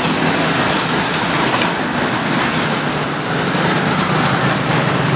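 Steady roadside traffic noise: a low engine hum under a continuous wash of noise, with a few faint clicks.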